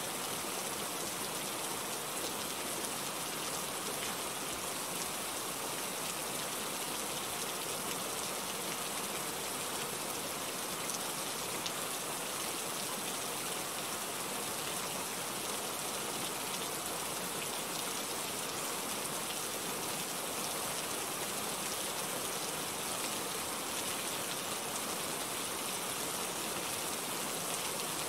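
Steady rain falling, an even hiss that holds without pause or change.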